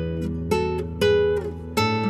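Background music: acoustic guitar playing plucked notes over a sustained bass, with a new note or chord roughly every half second.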